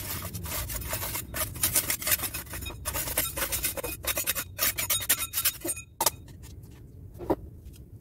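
Metal putty knife scraping against a damaged plaster wall in quick, repeated rasping strokes while patching it with wall putty. The scraping stops about six seconds in, leaving only a few light taps.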